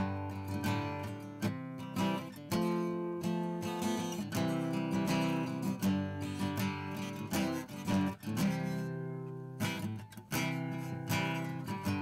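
Background music: strummed acoustic guitar chords.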